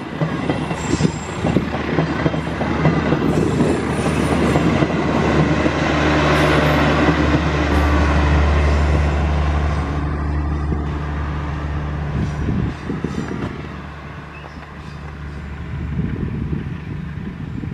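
Stainless-steel passenger train passing close by, its wheels clicking over the rail joints under a heavy rolling rumble. A steady low engine hum grows loudest as the generator car's diesel sets go by. About thirteen seconds in the noise falls away, and a more distant train rumble rises near the end.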